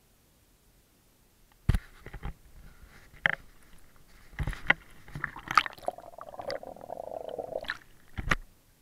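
Water splashing and gurgling close to the microphone, broken by several sharp knocks as the camera is moved. A longer gurgle runs from about six seconds in until shortly before a last knock near the end.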